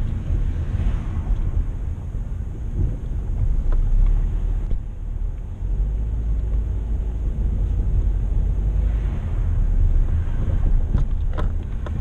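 Car cabin noise while driving, heard from inside the car: a steady low rumble of engine and tyres on the road, with a few light clicks near the end.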